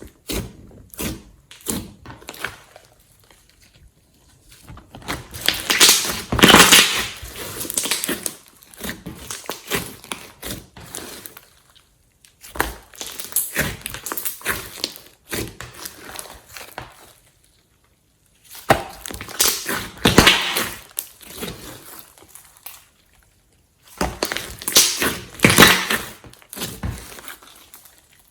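Hands squishing and stretching glossy slime, with sticky crackles and pops in bursts separated by short pauses.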